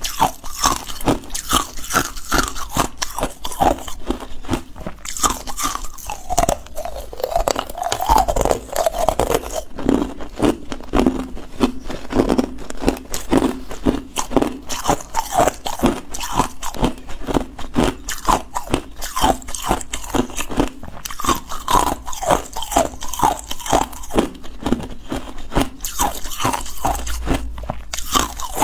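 Ice cubes being bitten and chewed close to a clip-on microphone: rapid, dense crunching and cracking of hard ice.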